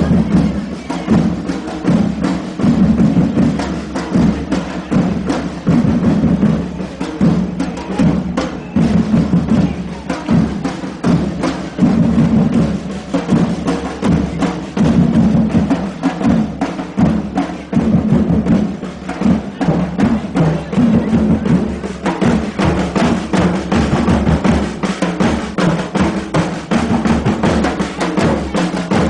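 Percussion group drumming a dense, steady rhythm: sharp clicking strokes over a low drum beat, with no break.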